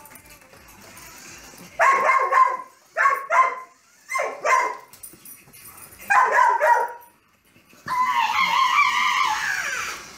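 A Carolina Dog–Basenji mix dog barking and yipping in play: four short bouts of high yips, then a longer call that falls in pitch near the end.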